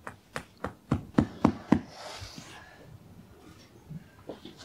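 Series of about eight sharp knocks in quick succession over the first two seconds, louder toward the end of the run, as a peg holding the robot mower's perimeter wire is fastened into the ground; two fainter taps near the end.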